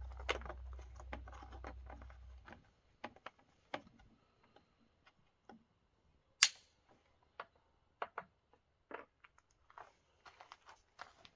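Scattered light clicks and knocks of a chainsaw being handled and worked on, with one sharp, much louder click about six and a half seconds in. A low hum runs under the first two seconds or so.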